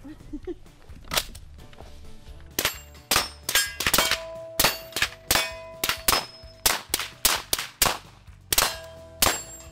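Gunfire at a range: one shot about a second in, then a steady string of about fifteen shots from an MP5-style 9mm Zenith ZF-5 fitted with a suppressor and a second long gun. Many shots are followed by the ringing clang of a steel target being hit.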